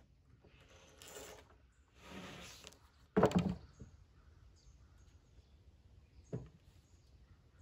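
A freshly cut black walnut slab being handled off the log: two short scrapes of wood sliding on wood, then a loud wooden knock a little after three seconds in, and a fainter knock later.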